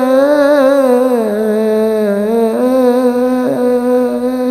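A boy singing an Arabic devotional sholawat (praise of the Prophet) solo, drawing out one long ornamented note that dips lower about a second in and rises again about two and a half seconds in.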